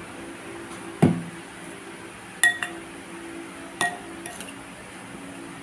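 A metal spoon stirring a tofu and vegetable mixture in a bowl, knocking once dully and then clinking against the bowl's rim twice with a short ring, followed by a fainter clink.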